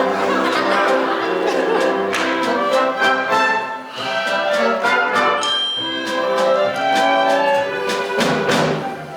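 Orchestral music led by brass, playing a brisk dance tune with a steady beat of sharp percussive hits.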